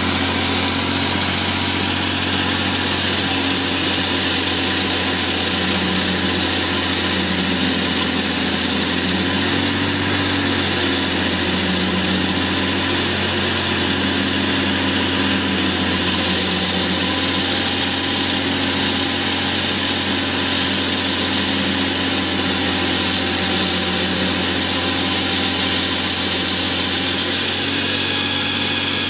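Diesel engine of a walk-behind concrete floor saw running steadily, with a broad hiss over the engine hum.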